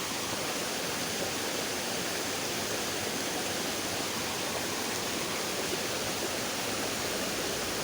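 Small river's water running steadily, a continuous even rush with no breaks.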